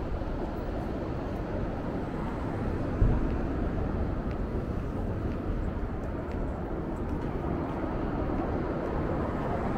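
Steady low rumble of city street traffic, with a short thump about three seconds in.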